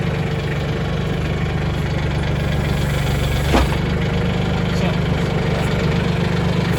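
Mahindra 1626 tractor's three-cylinder diesel engine idling steadily, with a single sharp knock about three and a half seconds in.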